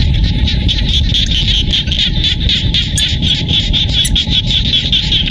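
A dense chorus of frogs calling in a flooded rice paddy: many rapid, overlapping pulsed calls that run on without a break, over a low rumble.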